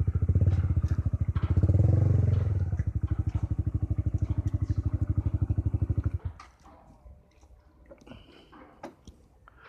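Honda CB150R's single-cylinder four-stroke engine running, swelling twice under throttle early on, then settling to an even idle putt before cutting off abruptly about six seconds in. Faint scattered clicks follow.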